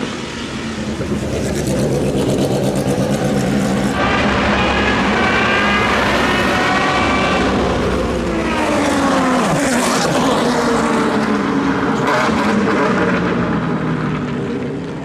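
Racing car engines at high revs, in several short clips cut together: engines climbing in pitch as they accelerate, then a car passing close by about two-thirds of the way through, its pitch dropping sharply as it goes past.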